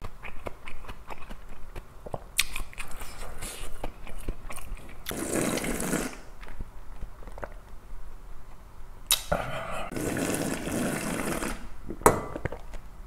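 Slurping cold kongguksu broth and noodles straight from a metal bowl, with small mouth clicks and swallows between two long slurps, the second one longer.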